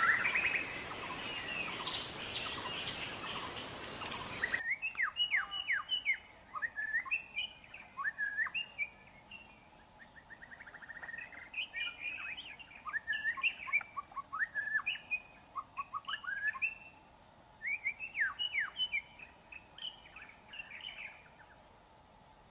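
Wild white-rumped shama singing in phrases of quick, varied whistled notes and trills, with short pauses between phrases. The first few seconds are louder, over a hiss, until an abrupt change about four and a half seconds in.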